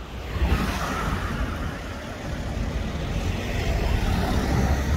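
A small Suzuki hatchback car driving past close by: a steady rush of tyre and engine noise with a low rumble, building about half a second in.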